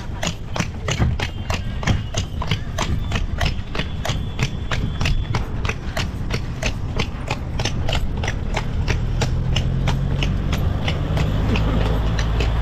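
Horse's hooves clip-clopping on a hard road in a steady rhythm, about four strikes a second, over a low rumble.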